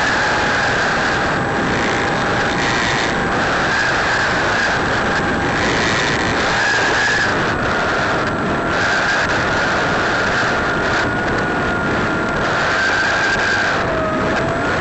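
E-Flite Apprentice RC trainer plane's electric motor and propeller whining, with wind rushing over the onboard microphone. The whine falls in pitch about seven seconds in, rises again around twelve seconds, and dips near the end.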